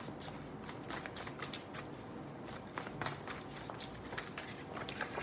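Tarot cards being shuffled by hand: a run of quick, irregular flicks and taps of card against card.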